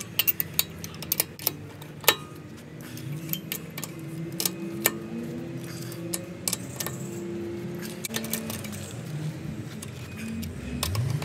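Steel four-way cross lug wrench clinking and rattling on a car wheel's lug nuts as they are tightened by hand. The sharp metal clinks come thickest in the first two seconds, then now and then.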